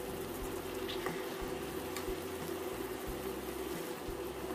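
Minced pork, amaranth greens and eggs simmering in a shallow pool of curry-paste liquid in a pan, giving a steady bubbling sizzle, with a couple of faint ticks.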